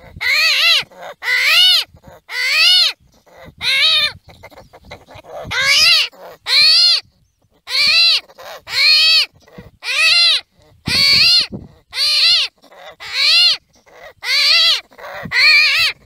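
Armadillo screaming: a long series of short, high-pitched calls about once a second, each rising and then falling in pitch, with a pause of about a second a little after four seconds in.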